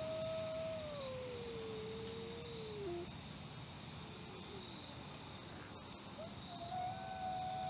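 Wolf howling off-screen: a long howl that slides down in pitch and breaks off about three seconds in, and a new howl starting near the end. A steady high insect drone runs underneath.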